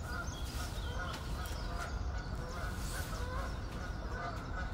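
Waterfowl calling in the background, geese honking and ducks, with a few higher songbird chirps over a steady low rumble.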